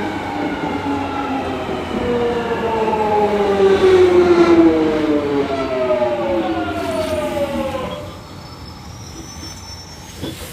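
Jubilee line underground train's traction motors whining, the whine falling steadily in pitch as the train slows for a station, then dying away about eight seconds in.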